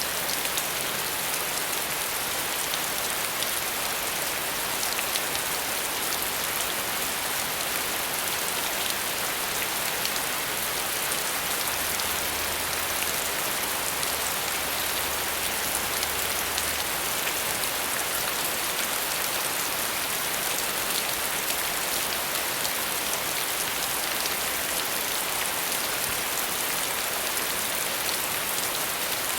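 Steady rain falling and pattering on a surface, an even hiss with scattered droplet ticks.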